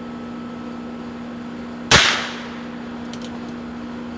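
A single gunshot from a Heritage Rough Rider single-action .22 rimfire revolver, about two seconds in: a sharp crack with a short ringing tail.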